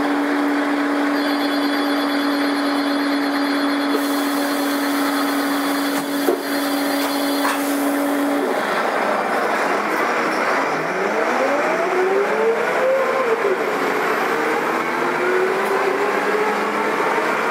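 Karosa B941 articulated city bus running with a steady hum for the first eight seconds or so. It then pulls away, its engine whine rising in pitch, dropping back about thirteen seconds in as it changes gear, and rising again.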